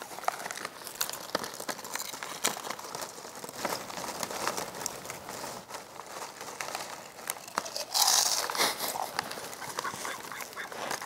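Foil snack-chip bag crinkling as it is handled and tipped up to pour chips into the mouth, with sharp crunches of chips being bitten. The loudest burst of crinkling comes about eight seconds in.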